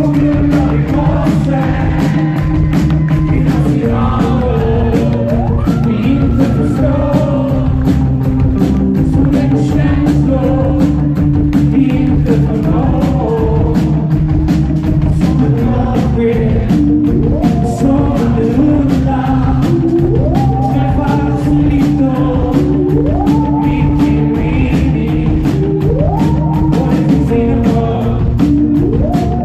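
Live rock band playing: a man sings into a microphone over drums and electric guitar.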